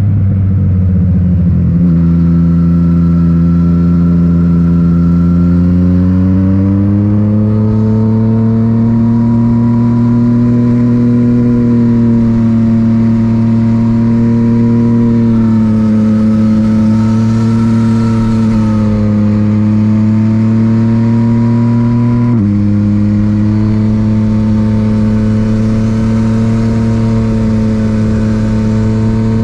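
Yamaha MT-09's inline three-cylinder engine through an Akrapovic titanium exhaust, pulling at a steady cruise. Its pitch climbs gradually after about seven seconds and drops suddenly about two-thirds of the way through.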